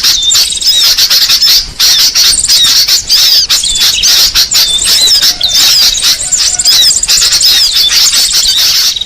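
Bird-lure recording: a loud, dense chatter of many small birds calling at once, fast overlapping high-pitched chirps, squeaks and short trills.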